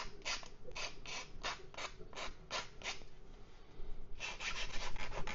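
Small hand file rasping the edge of a 3D-printed plastic part to clean off sprue nubs. Even back-and-forth strokes about three a second, then a quicker flurry of short strokes near the end.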